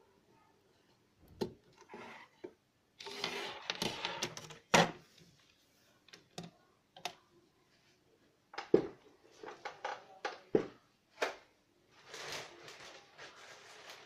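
Handling noise from a bare router circuit board and its jumper cable on a wooden desk: scattered clicks and knocks, the loudest about five seconds in, with brief rustling.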